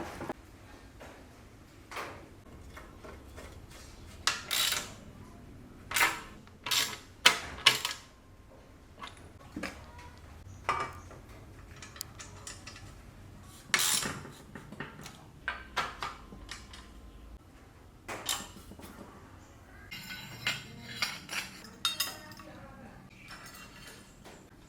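Metal tools and bicycle parts clinking and knocking against each other at irregular intervals during workshop work on a bicycle.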